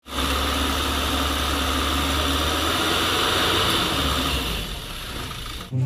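Mitsubishi Fuso dump truck's engine running steadily while its hydraulic hoist tips the bed up. It gets quieter about three-quarters of the way in and then cuts off.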